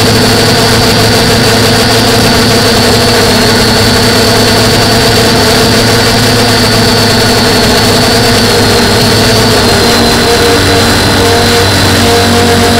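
DJI F450 quadcopter's brushless motors and propellers buzzing loudly, heard from the camera mounted on the quad, with a steady high whine that drifts slightly lower. About ten seconds in, the lower tones start to waver as the motor speeds change.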